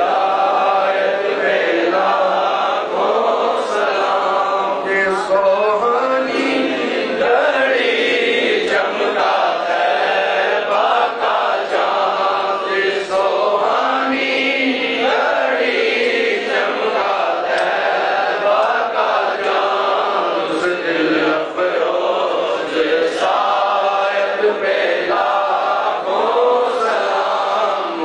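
Men's voices chanting together, a continuous chant held without pause.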